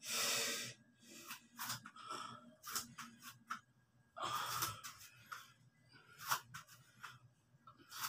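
A man breathing hard through bodyweight squats: quick, forceful puffs of breath with each rep, and two longer, louder exhales, one at the start and one about four seconds in.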